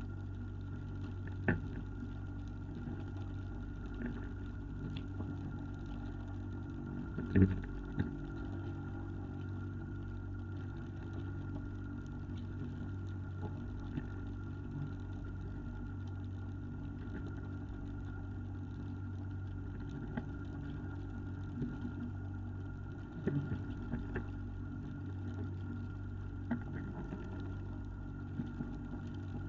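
Fishing boat's engine running steadily with an even hum. A few sharp knocks and thuds sound over it, the loudest about seven seconds in and another cluster near the end.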